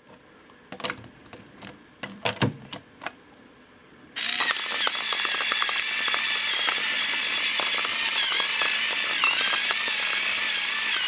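A few light plastic clicks, then about four seconds in the FinaMill battery-operated pepper mill's motor starts with a steady high whine and crunching, grinding large Himalayan salt crystals at its finest setting.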